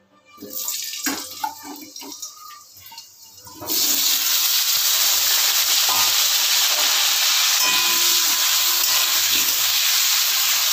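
Potato wedges going into hot mustard oil in an iron wok, with small clicks and light sizzling. From about four seconds in, the potatoes fry with a loud, steady sizzle.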